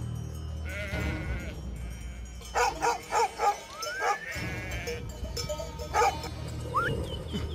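Kangal shepherd dog barking: a quick run of four deep barks about two and a half seconds in, then single barks near four and six seconds. A sheep bleats once about a second in, and background music plays underneath.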